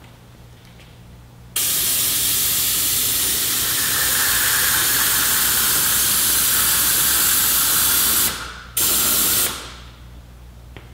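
Compressed-air power brake bleeder hissing as it sucks brake fluid out of a motorcycle's front brake master cylinder reservoir. It runs for about seven seconds, stops briefly, then gives one short second burst.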